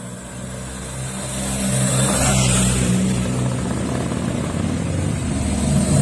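Motorcycle engine running as a motorcycle rides toward the camera, growing louder over the first two seconds and then holding steady.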